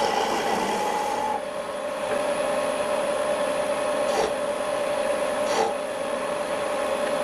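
Wood lathe running with a steady tone while a hand-held turning tool cuts and scrapes the spinning wood, a continuous rasping hiss with a couple of short ticks around the middle.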